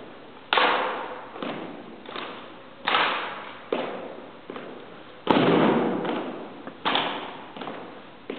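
Sharp slaps and knocks of two drill rifles being handled in a synchronized rifle drill, about one a second, each ringing on in a large echoing hall; the loudest comes a little past five seconds in.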